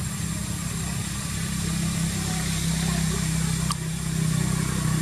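A steady low hum, engine-like, runs throughout, with a thin high tone above it and a single sharp click a little after three and a half seconds.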